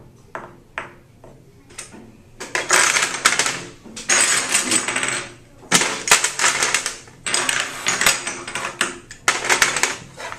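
Small game pieces clicking and clattering against a game board and its case as they are handled and set out: a few separate clicks at first, then several dense bursts of rattling clatter from a couple of seconds in.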